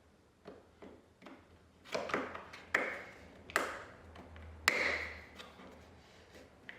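Reassembly of a dishwasher's door hinge area: a few light clicks, then four louder knocks and taps, some ringing briefly, the last the loudest.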